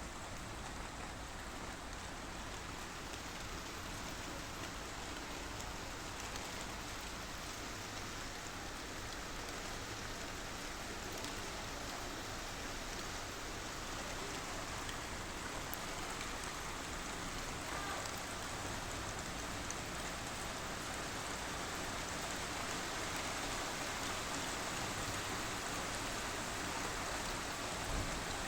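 Steady rain falling during a thunderstorm, an even hiss of drops that slowly grows louder, with a brief low thump near the end.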